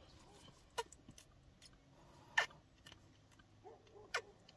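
Near quiet with a few faint, sharp clicks, about a second or more apart.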